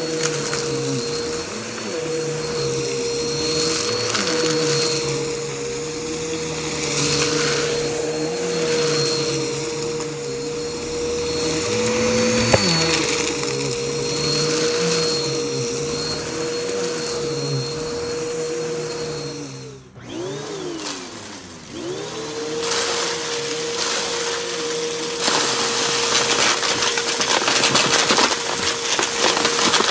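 Bissell upright vacuum cleaner running on carpet with its brushroll spinning against the pile, a steady motor whine with a thin high overtone. About two-thirds through the sound cuts out briefly, then the motor pitch dips and climbs back up to the same whine. Near the end it grows louder and rougher as the vacuum moves into a pile of dirt and debris.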